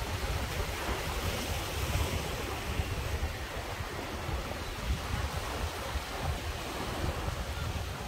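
Sea surf washing and breaking over coastal rocks, a steady rushing of water with no single crash standing out. Wind buffets the microphone with a gusty low rumble.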